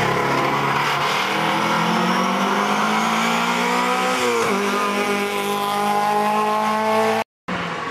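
Historic race car's engine accelerating hard uphill out of a hairpin, the revs climbing, dropping briefly at a gear change about four and a half seconds in, then climbing again. The sound breaks off for a moment near the end.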